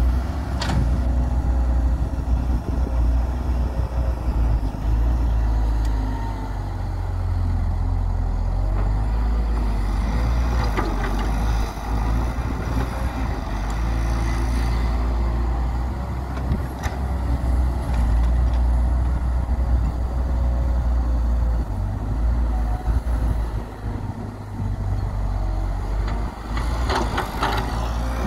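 Diesel engines of a Hyundai Robex 130W wheeled excavator and a farm tractor running with a steady deep drone while the excavator digs and swings loads of earth. A few sharp knocks come now and then: about a second in, midway, and a cluster near the end.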